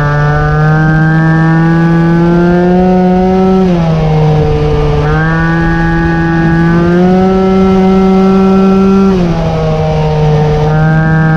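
Peugeot 103 Vogue moped's 50cc single-cylinder two-stroke engine, rebuilt and converted to a variator, running under way with a buzzing note whose pitch creeps slowly upward. Twice the note drops for about a second, then climbs back. Wind noise on the microphone sits under it.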